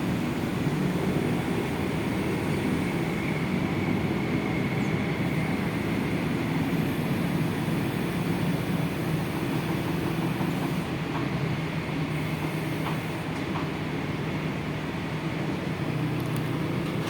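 Heavy diesel engine running steadily in a low, even drone, with a faint high whine a few seconds in.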